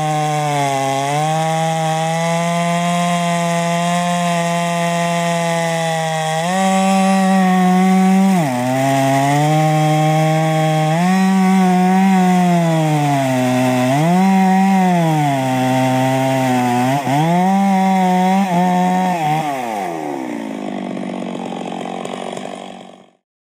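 Stihl MS660 98.5cc two-stroke chainsaw at full throttle cutting through a seasoned oak log. The engine pitch sags under load and climbs again as the chain frees up, several times over. About twenty seconds in it drops back to idle, then the sound cuts off.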